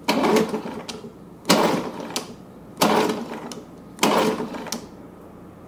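1965 Evinrude Fisherman 6 hp two-stroke outboard being pull-started by its recoil rope, four pulls about a second and a half apart. Each pull is a short rasping whirr of the engine turning over, some ending in a click. The choked engine, which has been sitting a while, does not fire.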